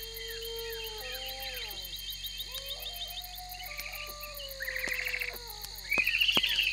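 Evening countryside chorus: crickets and other insects trilling steadily, overlaid by whistled bird calls that glide up and down in pitch. Two louder bursts of calling come in the last two seconds.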